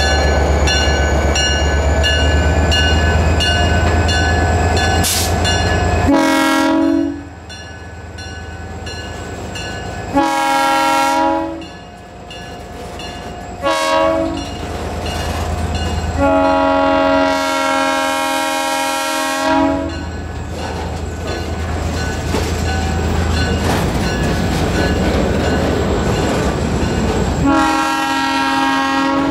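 Portland & Western diesel locomotive's engine rumbling as it pulls past, then its multi-chime horn sounding the grade-crossing signal: long, long, short, long, with another blast starting near the end. Freight cars roll by on the rails between the blasts.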